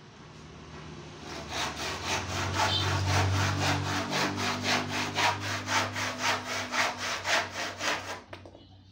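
Hand saw cutting through a wooden board in quick, even strokes, about four a second. The sawing starts about a second and a half in and stops near the end.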